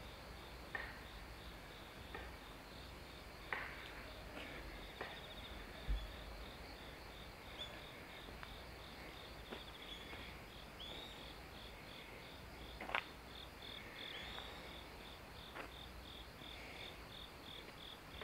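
Insect chirping in a steady, even pulse of high notes, about three a second, with a few faint scattered clicks.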